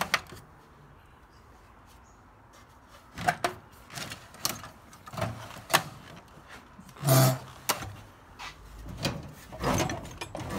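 Scattered knocks, clicks and bumps of hard objects being handled, starting about three seconds in, with a louder clatter about seven seconds in.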